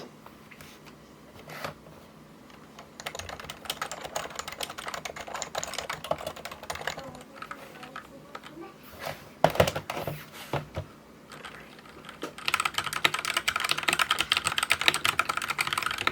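Fast typing on a keyboard. There is a run of keystrokes from about three to seven seconds in, a few separate heavier strokes near ten seconds, then a denser, louder run of typing over the last few seconds.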